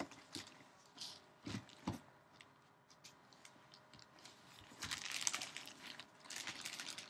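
Trading cards and their plastic packaging being handled: a few soft taps, then a stretch of crinkling about five seconds in.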